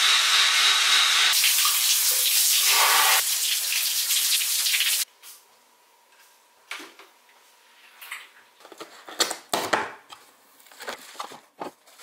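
Cordless electric bathroom scrub brush running its spinning head over wet, foamy floor tiles: a loud, steady hiss of bristles on wet tile, with a high motor whine for the first second or so, stopping about five seconds in. Then scattered light clicks and knocks as the plastic brush is handled and hung on its wall holder.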